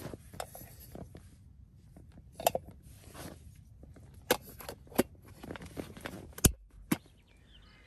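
Small clicks and clinks of a Jetboil Stash stove kit being nested together: the burner and gas canister are lowered into the titanium pot and the lid is pressed on. Five or six separate sharp clicks over faint handling noise, the loudest one near the end.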